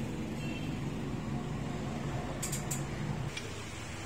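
A steady low hum that stops about three seconds in, with a few light metal clicks near the end as the steel wrench tool is set into a bench vise.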